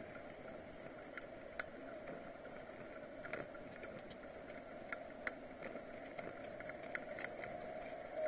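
Faint riding noise from a bicycle on a paved road: a steady hum with irregular light clicks and rattles every second or so.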